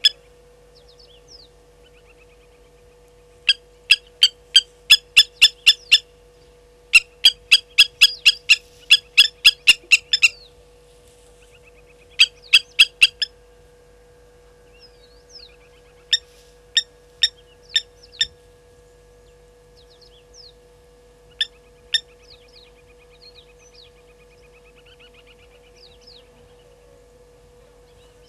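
Blacksmith lapwings giving their sharp, metallic 'tink' alarm calls in rapid runs of about three a second, stopping and starting several times and thinning out to a few single calls. They are alarmed by a slender mongoose.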